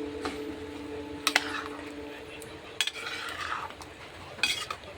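Spatula stirring okra curry in a karai, scraping the pan and knocking against it a few times, with a cluster of clinks near the end.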